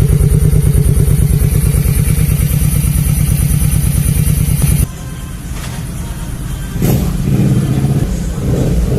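Motorcycle engine idling steadily with even, rapid firing pulses and no misses heard after its fouled spark plug was cleaned. About five seconds in it cuts off abruptly, giving way to a quieter engine sound that rises again near the end.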